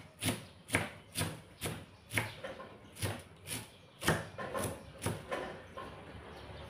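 Kitchen knife chopping cabbage on a thick wooden chopping board: a steady run of knocks about two a second, stopping near the end.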